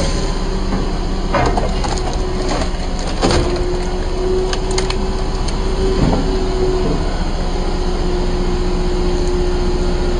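Dyna firewood processor running: its engine and hydraulics drone steadily, with a steady whine for a few seconds in the middle. Several knocks and cracks come through as the log is pushed onto the splitting wedge and split pieces drop.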